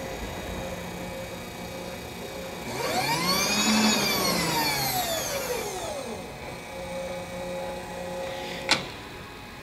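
Power table feed motor on a Vectrax GS-20V vertical mill running with a steady hum. Its whine rises in pitch and falls again as the speed knob is turned up and back down, and it stops with a sharp click near the end.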